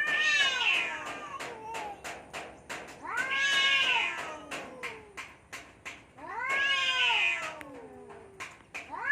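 Cats caterwauling in a standoff, the drawn-out yowls of a territorial fight. Three long wails come about three seconds apart, each rising and then sliding down in pitch, and a fourth starts at the end. A patter of sharp clicks runs in the background.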